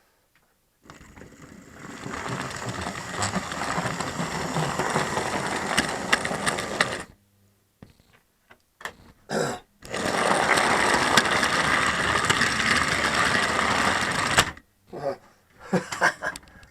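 Model railway train running on the track: a small motor whirring steadily with light clicks. It stops about seven seconds in, and after a few short sounds it runs again for about four seconds before stopping near the end.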